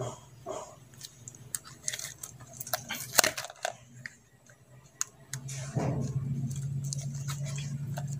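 Sharp clicks and crunching crackles of electrical wire being worked with pliers, stripping insulation and twisting the copper into a splice. About five seconds in a steady low hum comes in and holds.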